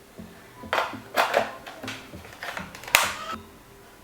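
Plastic clicks and clatter from handling a battery-powered toy machine gun while its batteries and attachments are fitted. There are four or five short, sharp knocks a second or so apart.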